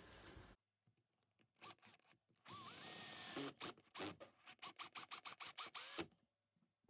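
Power drill driving self-tapping screws into a wooden brace. It runs for about a second with its motor pitch rising, then in a string of short quick trigger bursts, about five a second, as the screw is driven home.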